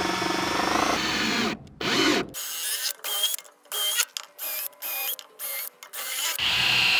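Cordless drill driving screws through a galvanized steel bracket into a wooden post. It runs steadily at first, then in several short trigger pulls with a whine that rises each time, then in one longer run near the end.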